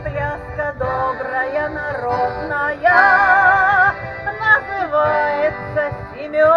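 A song performed by singers with instrumental accompaniment through loudspeakers. About halfway through, one voice holds a long note with vibrato for about a second.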